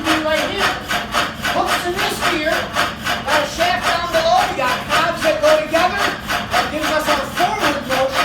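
Water-wheel-driven machine running at speed, its stroking action keeping a fast, steady rhythm.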